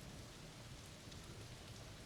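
Steady rain falling in a thunderstorm, an even hiss with a few faint drop ticks.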